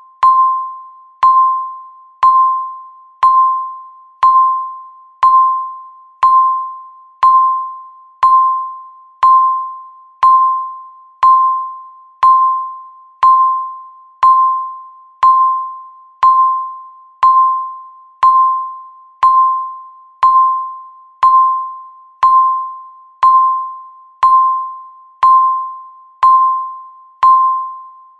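Countdown timer beeping once a second, a single pitched electronic tone with a sharp start that fades away before the next beep.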